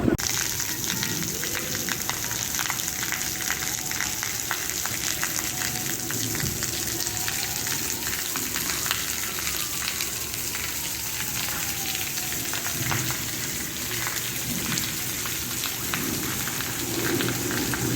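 Steady rain, a dense patter of drops hitting surfaces. About halfway through, a faint tone glides down in pitch.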